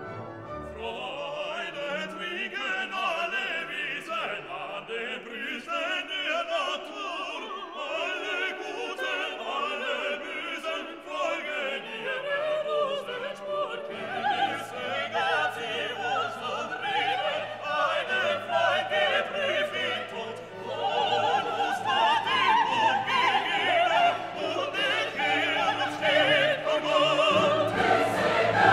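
Classical background music with operatic singing over an orchestra. It gets louder and fuller about two-thirds of the way through.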